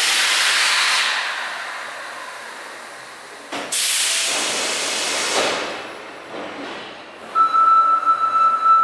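Osaka Metro 10 series subway train releasing compressed air: a sharp hiss that fades over a few seconds, then a second hiss about three and a half seconds in. From about seven seconds in a steady high-pitched whine sets in.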